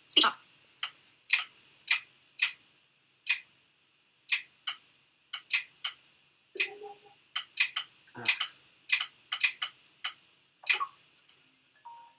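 An irregular series of sharp clicks, roughly one or two a second, some in quick pairs, over a faint steady hiss.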